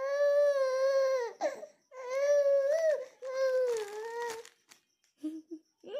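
Baby crying in three long wails with short breaths between them, followed by a brief whimper near the end.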